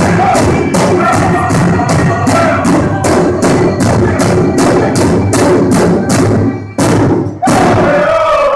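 Several men singing together while striking one large shared powwow-style drum in unison, about three beats a second. Near the end the song breaks off briefly twice, then a high sung line comes back in over the drumming.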